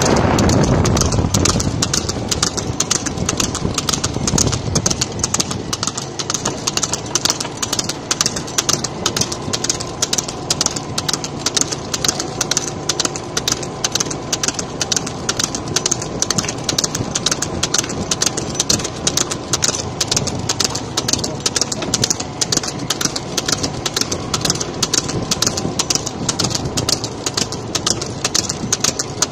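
Buffalo (jhota) racing cart at speed: a fast, even clatter of several beats a second, over the steady hum of an engine running.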